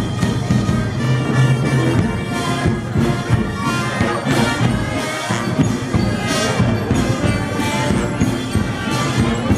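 Processional brass band playing a slow Guatemalan procession march, with sustained brass chords over a low sousaphone line.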